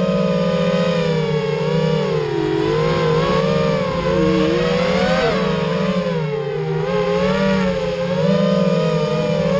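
FPV quadcopter's brushless motors and propellers whining in flight, picked up by the GoPro riding on the drone: several tones close in pitch that rise and fall together as the throttle changes, with a short climb in pitch about five seconds in.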